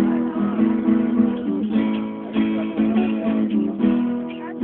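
Acoustic guitar being strummed, a run of chords with regular strokes and a few chord changes.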